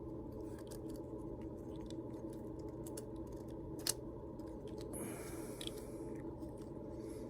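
Faint clicks and small handling noises of a die-cast toy car's parts being fitted together, the sharpest click about four seconds in, over a steady low hum.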